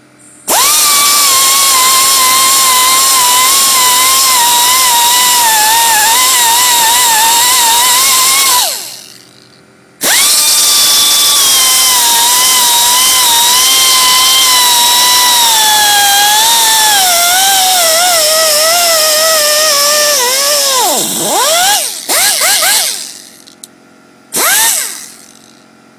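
Pneumatic angle die grinder with a 100-grit abrasive disc, whining at high speed in two long runs of about eight and ten seconds, each spinning down at the end. In the second run the pitch sags and wavers as the small compressor's air runs low, then the grinder is blipped briefly twice near the end.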